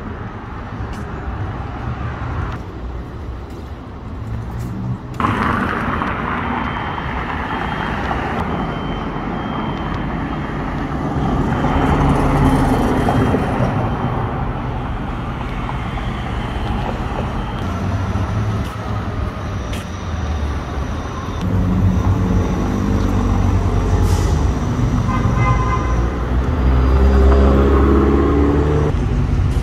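City street traffic: a steady noise of cars and trucks passing. Near the end a vehicle's engine pulls away, its pitch rising.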